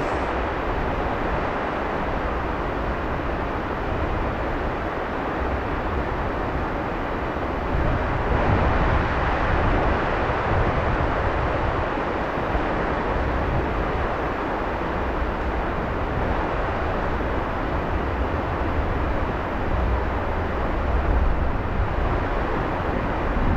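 Steady rushing noise with a low rumble underneath, rising and falling a little in level.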